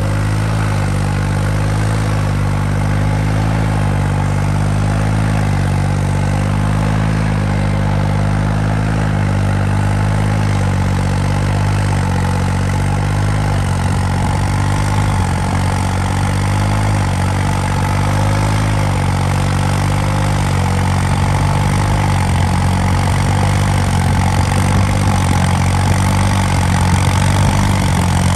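New Holland 3630 tractor's diesel engine, fitted with a modified fuel pump and turbo, running steadily under heavy load while pulling a tyne cultivator through hard soil.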